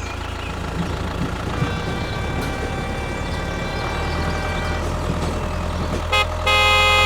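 Motor of a mini model vehicle running steadily. A short beep comes just after six seconds, then a louder, steady horn-like beeping tone near the end.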